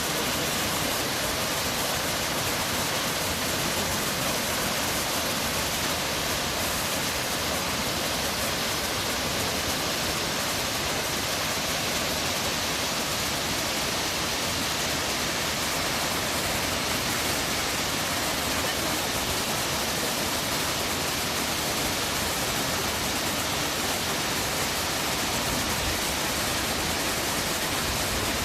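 Waterfall: falling water making a steady, even rush with no breaks.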